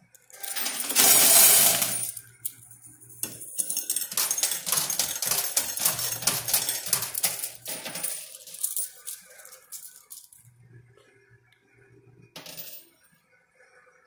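Quarters clattering in a coin pusher machine: a loud rush of coins about a second in, then rapid clinking as coins drop and slide across the shelves, thinning out. One more short clatter comes near the end.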